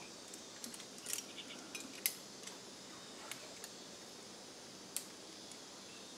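Aluminium carabiners and quickdraws on a lead climber's harness clinking as he moves and pulls up rope to clip, a scatter of sharp metallic clicks with the loudest about two seconds in and another about five seconds in.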